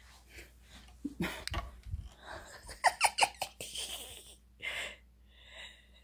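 Camera being pulled down and handled: several knocks and scrapes with short squeaks, loudest a little over a second in and again around three seconds in, with a few breaths.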